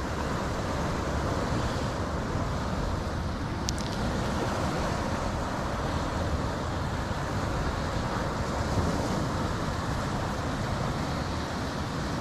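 Steady roar of sea surf breaking on a rocky shore, mixed with wind rumble on the microphone, with one faint click about four seconds in.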